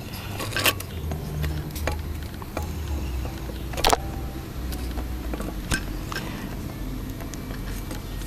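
Handling noise from a camera being picked up and repositioned: scattered clicks and knocks, the loudest about four seconds in, over a low steady rumble.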